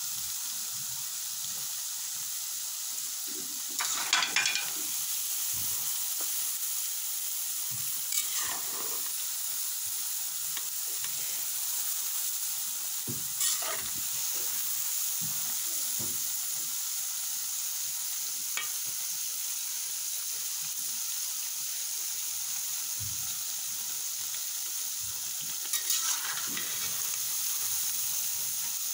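Small dough snacks (daddies) deep-frying in hot oil, a steady sizzle. A metal spoon stirs them, scraping against the metal pan four times.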